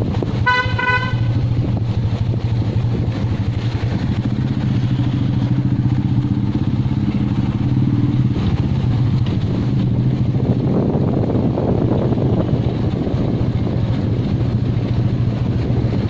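Royal Enfield motorcycle engine running steadily, with one short horn honk about half a second in. From about ten seconds in a rough rushing noise, like wind on the microphone, grows over the engine.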